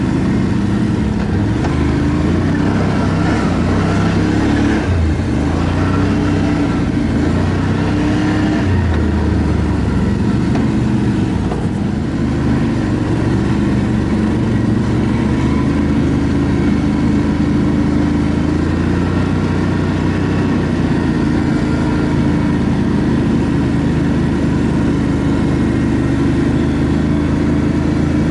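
ATV engine running while riding, its pitch shifting up and down in the first ten seconds or so and then holding steady.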